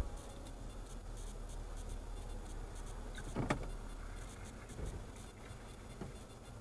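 Steady low rumble of a moving car, heard from inside the cabin by a dash cam, with one sharp click about three and a half seconds in and two fainter knocks after it.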